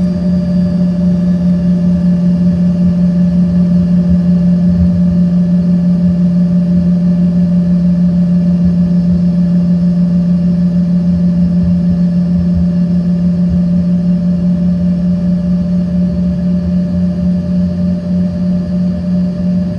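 Embraer ERJ-140's rear-mounted Rolls-Royce AE 3007 turbofans running at taxi power, heard from inside the cabin: a loud, steady hum over a low rumble. The hum eases slightly near the end.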